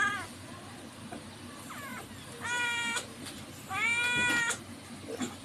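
Cat meowing as a hand presses on its belly: one meow trailing off at the start, a faint short one about two seconds in, then two drawn-out meows about two and a half and four seconds in.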